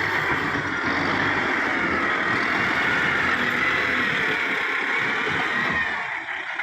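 Kubota MU5501 tractor's diesel engine running steadily and loud, with a faint wavering high whine over it; the level drops a little just before the end.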